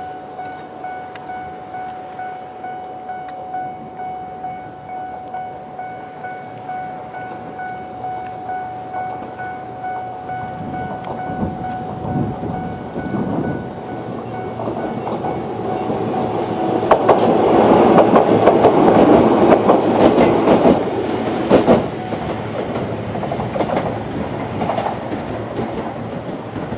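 A Japanese level-crossing alarm rings in a steady, pulsing electronic tone, with the lower-pitched second alarm unit cutting out. A Toyama Chiho Railway 14760-series electric train comes up and passes over the crossing. Its wheels clatter over the rail joints, loudest about two thirds of the way in, then die away.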